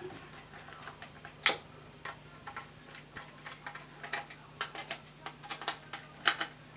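Small screws being driven with a precision screwdriver into a 3D-printed plastic model locomotive body: irregular light clicks and ticks as the bit turns and seats, the sharpest about a second and a half in and a quick cluster near the end.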